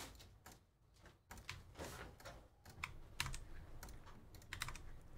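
Typing on a computer keyboard: scattered key clicks in short runs.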